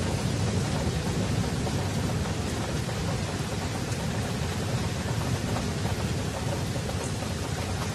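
Steady rush of heavy rain and fast-flowing floodwater, with a deep rumble underneath.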